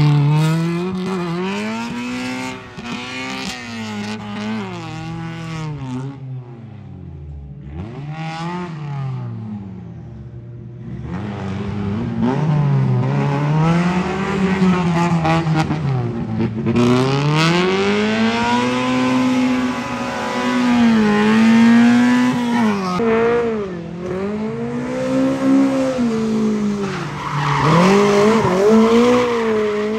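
Rally car engine driven hard, its revs climbing and dropping again and again through gear changes and corners. It fades for a few seconds in the middle, then comes back louder, with tyres squealing near the end.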